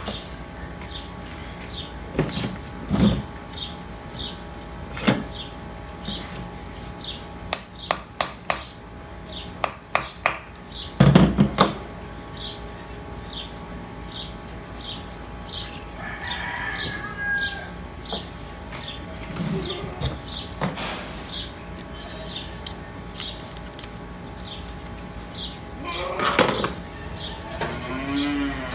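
Metal clinks and knocks of hydraulic pump parts and tools being handled, with a run of quick clicks partway through and a loud knock a little after that. A high chirp repeats about twice a second over a steady hum.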